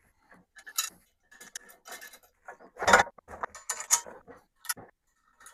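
Metal TV-mount bracket parts and bolts clicking and clinking as they are handled and fitted, with a louder knock about three seconds in.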